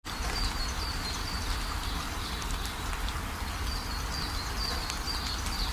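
Birds chirping again and again in short, high, slightly falling notes, over a steady low rumble of outdoor noise.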